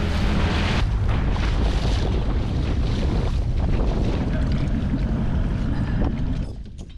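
Outboard motor of an inflatable dinghy running under way, with wind buffeting the microphone and water rushing past. Near the end the engine noise drops as the dinghy slows beside the dive boat.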